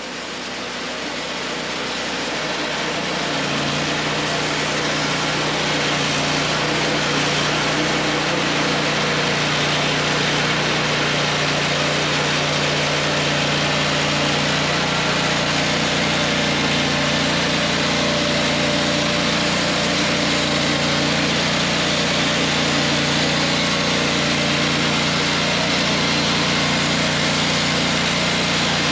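WoodMizer LT40 Wide portable band sawmill running steadily, its band blade sawing through a hickory log. It grows louder over the first three or four seconds, then holds level.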